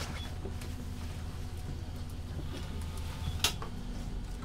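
Steady low hum of a KiHa 150 diesel railcar's engine running, heard from inside the car, with one sharp click about three and a half seconds in.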